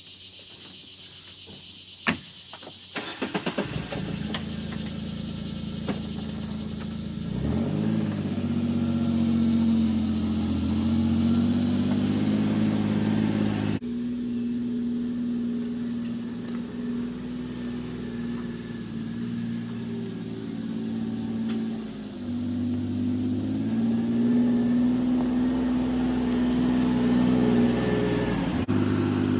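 A door shuts, then the Kawasaki Mule Pro-FXT side-by-side's three-cylinder engine is started and driven off. The engine note rises and falls as it moves, and breaks off abruptly about halfway through before carrying on.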